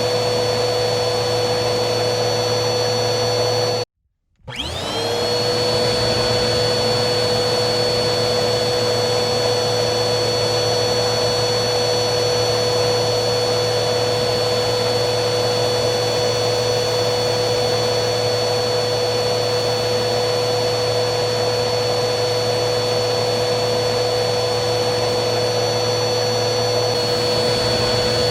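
Vacuum cleaner motor running with a steady whine and rush of air. About four seconds in it cuts out abruptly for half a second, then the whine climbs quickly back up to speed and runs on steadily.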